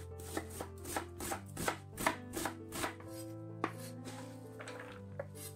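Knife chopping onion on a bamboo cutting board in quick even strokes, about three a second. The strokes stop about three seconds in, followed by a few scattered taps. Soft background music plays underneath.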